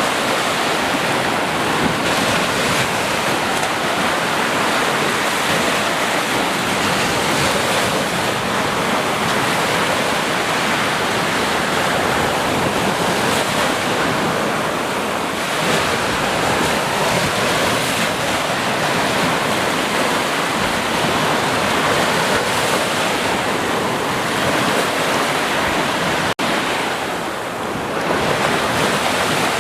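Sea surf: a steady, unbroken wash of waves breaking, with a split-second gap near the end.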